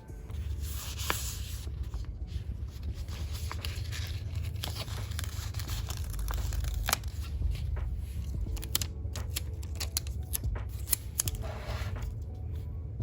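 Planner stickers being peeled off their backing sheets and handled: short papery rasps and crinkles with small clicks and taps, over a steady low hum.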